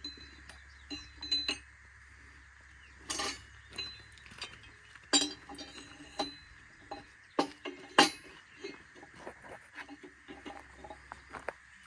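Irregular metal clinks and knocks, some ringing briefly, from tools and parts being handled during tire work.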